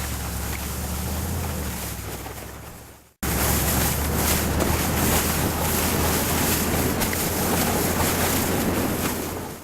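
Wind rushing hard over an action camera's microphone during a fast tow ride on snow, with a low steady rumble underneath. The sound fades and cuts out about three seconds in, then comes back louder.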